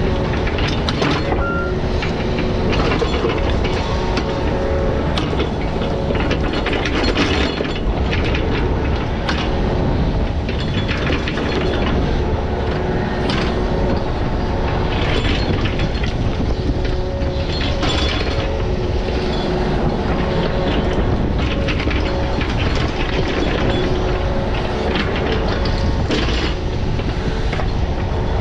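Heavy digging machine running steadily, with a constant engine hum and many scattered clanks and rattles of metal and rock.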